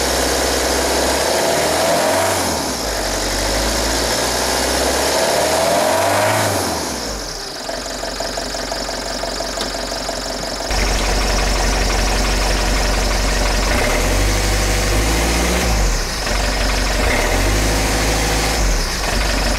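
Fiat Ducato 2.5 TDI four-cylinder turbodiesel idling cold at about freezing, a short while after a cold start. Its pitch rises and falls briefly a few times. About halfway through, the sound becomes louder and deeper, heard up close at the exhaust.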